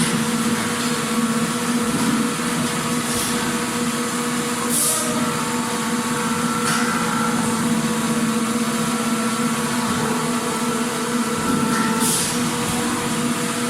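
Factory machinery running with a steady hum, with a few short high hisses breaking through now and then.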